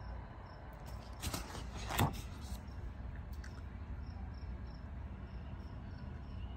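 Crickets chirping faintly in the background, a steady run of short, evenly spaced high-pitched chirps, with a couple of soft knocks, the loudest about two seconds in.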